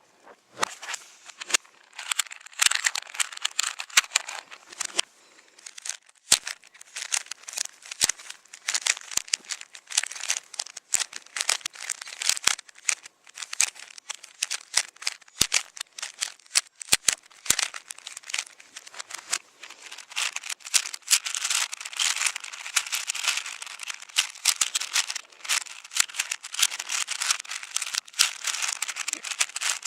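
Plastic speed cubes being turned very fast by hand: a dense, continuous clicking rattle of layers snapping round, with a few sharper knocks here and there.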